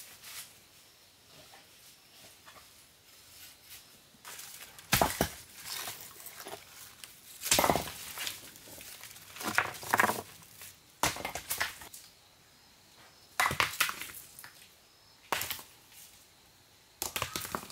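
Irregular sharp knocks and short scraping crunches of hand work with hard material, several seconds apart.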